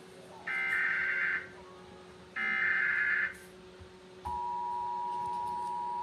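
Emergency Alert System tones from a TV: two buzzy, about one-second bursts of the digital SAME header data, a second apart, then about four seconds in the steady two-tone EAS attention signal starts and holds.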